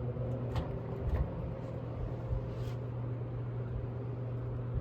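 1960s GE three-speed all-metal box fan running on low speed, a steady motor hum under a rush of moving air; it is the quieter of the two fans once up to speed.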